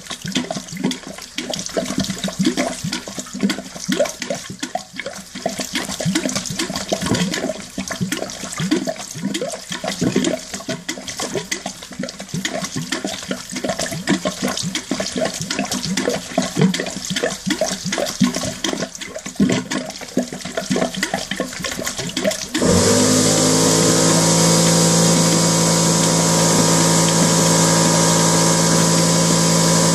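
Sludge-laden water from a heating-circuit desludging hose gushing and splashing into a toilet bowl. About three-quarters of the way through, a pump motor starts abruptly and runs with a steady, louder hum over the water: the flushing machine being set up for hydrodynamic rinsing.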